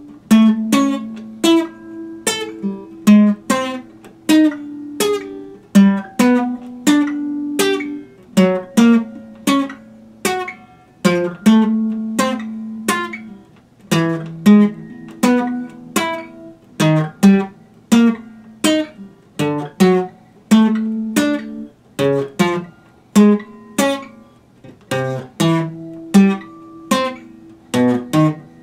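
Acoustic guitar fingerpicked, an even, unhurried pattern of single notes and chords at about two plucks a second, each note left to ring, with no singing.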